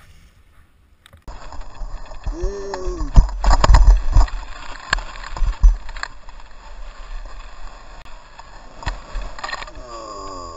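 Wind rushing over a helmet-mounted action camera and skis scraping down packed snow, starting suddenly about a second in. A cluster of heavy thumps comes about three to four seconds in, with another shortly after, as the skis hit the ground landing a jump.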